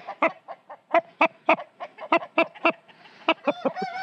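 Barred rooster clucking: a rapid run of short clucks, about three or four a second, moving into longer drawn-out calls near the end.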